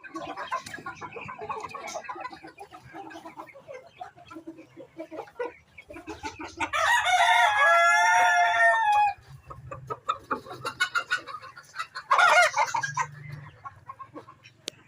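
Bantam chickens clucking, with a rooster crowing once, long and loud, starting about seven seconds in, and a shorter loud call about twelve seconds in.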